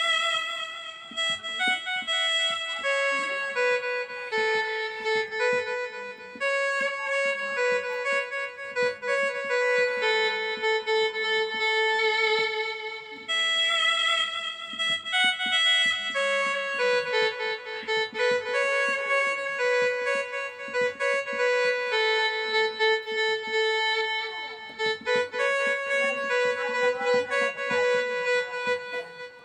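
A song melody played one note at a time on a MIDI keyboard, a sustained instrument voice rich in overtones, with notes stepping up and down and a few short breaks between phrases.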